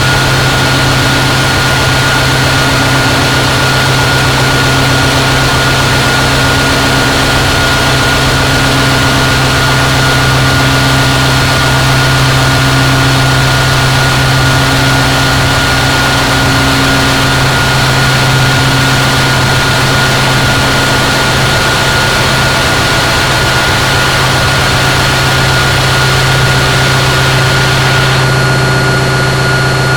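Harsh noise drone from a DIY synthesizer run through distortion and effects pedals: a loud, dense wall of noise over a steady low hum, with thin steady high whistling tones on top. Near the end the highest part of the noise thins out a little.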